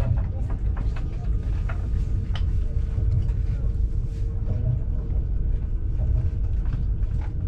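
Passenger train running along the line, heard from inside the carriage: a steady low rumble of wheels on track with a few short, sharp clicks and knocks and a faint steady hum.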